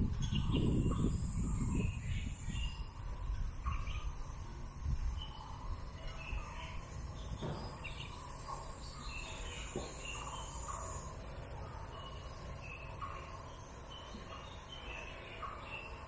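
Outdoor ambience: birds chirping on and off over a steady high-pitched insect buzz, with a low rumble in the first two seconds.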